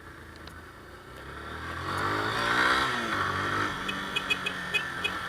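Motorcycle engine accelerating, its pitch climbing for about two seconds, then dropping back and running steadily at lower revs. Short, light ticks come in over the last second or so.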